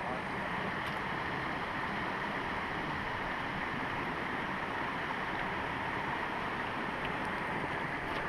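Small creek water rushing and babbling over rocks, a steady, even wash of sound.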